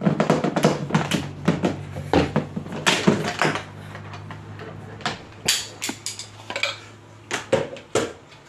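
Kitchenware clattering: plastic juicer parts and dishes are knocked and set down on the counter in a quick run of clicks and knocks, over a low steady hum that fades out near the end.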